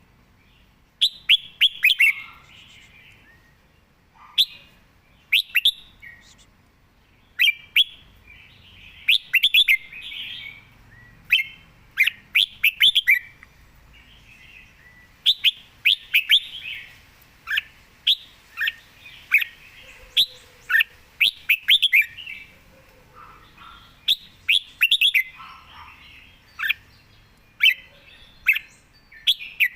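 Red-whiskered bulbul singing: quick, bright whistled phrases, each a cluster of sharp notes, repeated every second or two with short pauses between.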